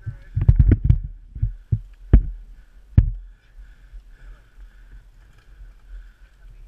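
Downhill mountain bike jolting over a rough dirt trail, picked up by a mounted action camera: a run of hard knocks and thuds in the first three seconds, then quieter rolling with a faint steady hiss.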